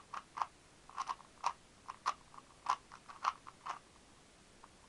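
Rubik's speed cube being turned by hand: irregular plastic clicks of the layers snapping round, about a dozen over three or four seconds, then stopping.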